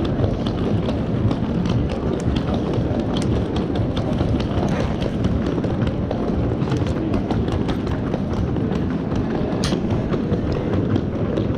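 Footsteps clicking on stone paving amid a walking crowd, over a steady low rumble of street noise, with one sharper click close to the end.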